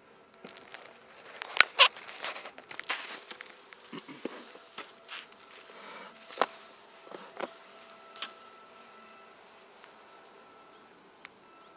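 Honeybees buzzing over an open hive, with sharp clicks and knocks of wooden frames and a metal hive tool as frames are set back and pried loose in the box. The loudest knocks come about a second and a half in, with another sharp one near the middle.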